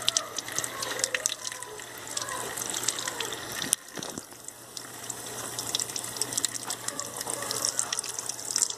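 Tap water running and splashing into a sink as a small puppy is washed under it, with scattered small splashes and drips. The flow dips briefly about four seconds in.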